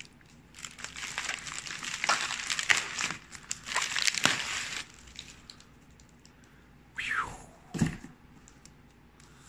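Plastic bubble wrap crinkling and crackling as it is handled, dense for about five seconds and then dying away. Then a brief sound falling in pitch about seven seconds in, and a short thump just before eight seconds.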